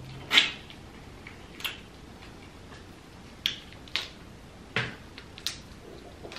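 A tiger prawn's shell cracking as it is bitten and then peeled apart by hand. About six short, sharp cracks come at uneven intervals, the loudest about half a second in.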